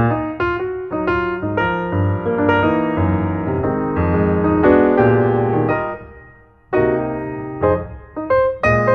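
Background piano music, with a run of struck chords over a bass line that pauses briefly about two thirds of the way through.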